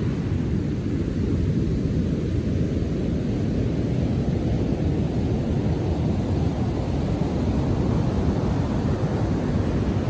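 Heavy ocean surf after a storm: waves breaking and washing up a sand beach in a steady, deep rumble. The hiss of the wash fills in and grows brighter from about four seconds in.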